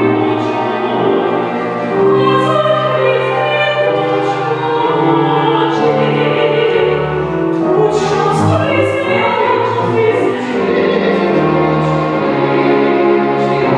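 Opera performed live: voices singing with a choir over a small string orchestra.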